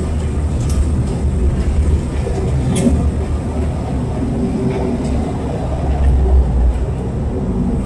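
Airliner cabin noise during landing: a steady low rumble of the aircraft's engines and airflow, heard from inside the cabin, with a few faint clicks.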